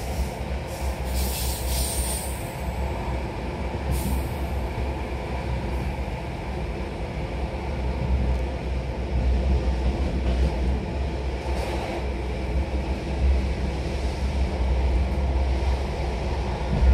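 Classic NMBS/SNCB AM electric multiple unit under way: a steady low rumble of wheels on rail, with a few sharp clicks in the first four seconds.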